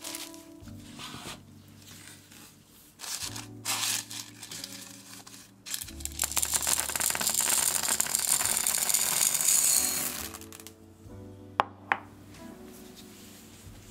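Crinkling of plastic wrap and baking paper, then ceramic baking beads poured into a paper-lined tart ring: a loud, dense rattling cascade lasting about four seconds, followed by two sharp clicks. Soft background music plays underneath.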